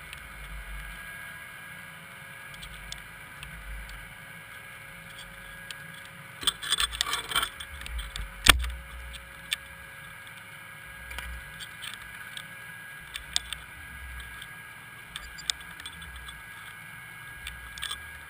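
Underwater audio from a camera housing hanging on a line: a steady low rumble and hum, with a short cluster of clicks and rattles and then one sharp knock a little past the middle.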